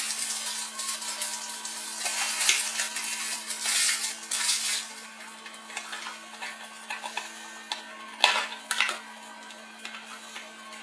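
Hands handling cardboard packaging and plastic wrap: rustling and crinkling for the first few seconds, then lighter taps and clicks as small cardboard boxes are lifted out, with one sharp click about eight seconds in.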